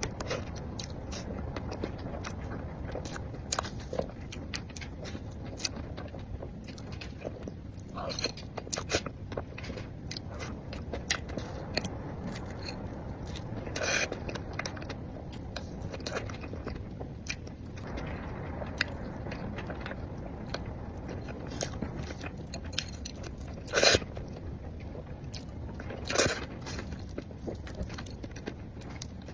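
Close-miked eating sounds: biting into and chewing a pistachio cream crepe cake topped with crunchy nuts, with many small clicks and crackles and a few louder crunches, the loudest near the end.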